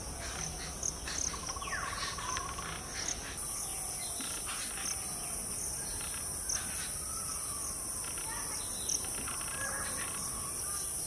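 Garden ambience: insects keep up a steady high-pitched drone that grows louder about a third of the way in, while birds give scattered short chirps and whistled calls over it.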